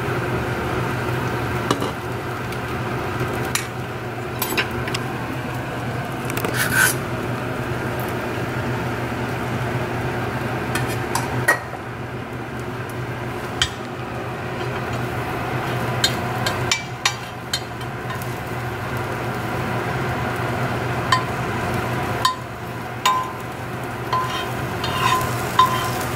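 Beaten egg frying in hot oil in a pan, with a steady sizzle over a low hum. A metal ladle clicks and scrapes against the pan every few seconds as small egg pancakes are shaped for egg dumplings.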